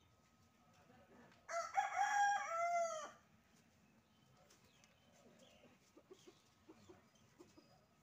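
A rooster crows once, a loud call of about a second and a half. Soft, short chicken clucks follow.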